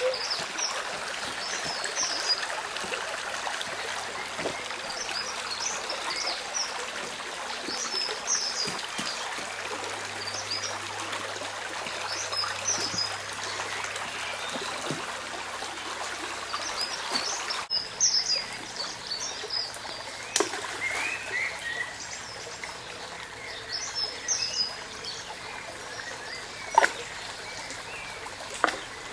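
Shallow stream trickling steadily over stones, with small birds singing short chirping phrases again and again. A few brief knocks or splashes stand out, the loudest near the end.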